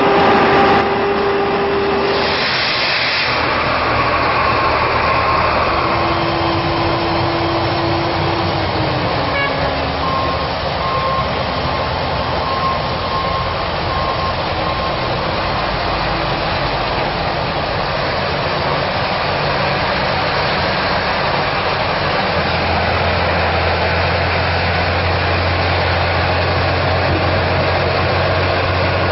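Heavy diesel engines of mining dump trucks running steadily as they work through mud, with a deeper engine drone coming in about three-quarters of the way through.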